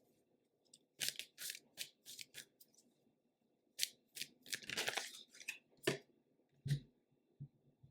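Tarot cards being shuffled and handled: clusters of short, crisp card flicks and rustles.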